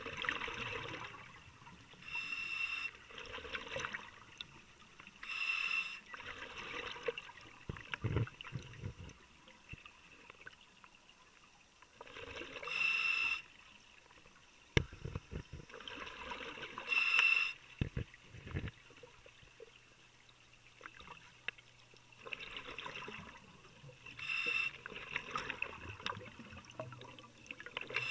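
Scuba diver breathing through a regulator underwater: a hissing inhale through the demand valve, then a gurgling rush of exhaled bubbles, repeating every few seconds. A few dull knocks fall in the middle.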